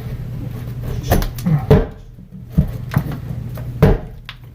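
A cut-out drywall panel being punched and knocked loose from the wall: a handful of sharp thumps and knocks at uneven intervals, with a steady low hum underneath.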